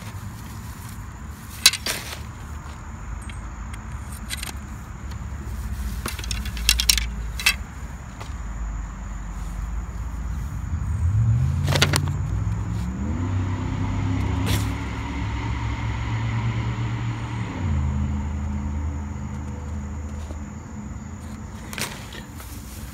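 Metal-tipped frame poles of a golf practice net clicking and clinking as they are handled. Under them a motor vehicle engine runs steadily; its pitch rises about halfway through, holds for a few seconds, then drops back.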